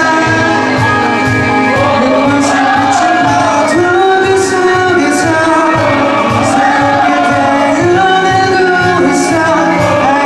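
Live rock band playing: a male singer over electric guitars, bass guitar and drums, with a regular cymbal beat.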